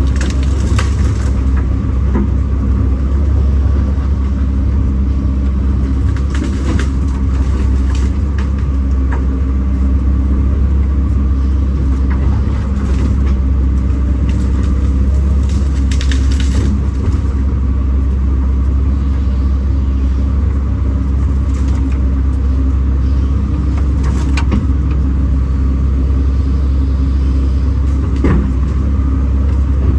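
Kobelco SK210 excavator's diesel engine running steadily under work, with a few short knocks here and there.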